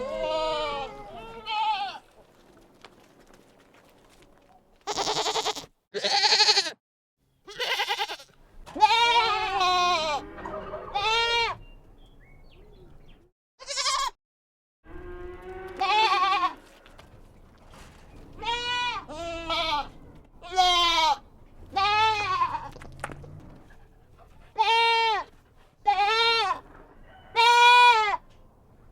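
Goats bleating one after another, about twenty calls with short gaps between them. Most calls are pitched bleats that rise and then fall. A few are harsh, scream-like cries.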